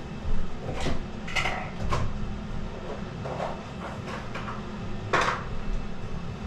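Small hard metal objects clinking and rattling as they are handled, in a handful of short irregular clatters with the loudest about five seconds in, over a steady low hum.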